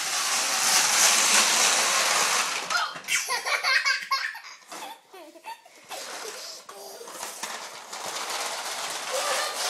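Plastic toy vehicles rolling fast across a tiled floor, a loud rolling noise for the first three seconds, then a toddler giggling and laughing. Near the end a quieter rolling noise as a plastic toy bus is pushed along the tiles.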